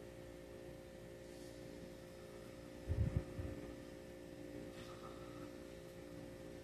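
Steady low electrical hum, with a brief low thump about three seconds in.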